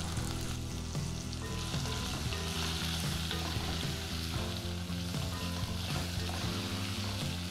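Diced potato and carrot sizzling steadily in hot oil in a casserole pot while being stirred and turned with a wooden spatula.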